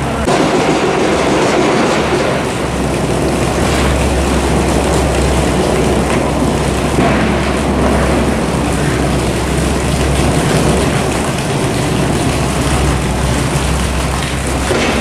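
Loud, steady construction machinery noise: a continuous mechanical din over a low, steady drone.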